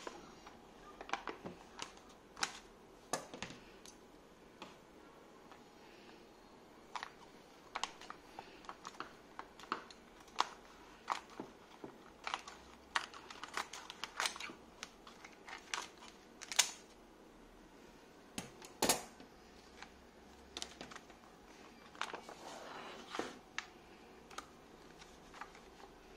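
Thin plastic packaging crinkling and rustling in the hands, with irregular sharp clicks and snips as a scissors cuts the bag open around a resin tank.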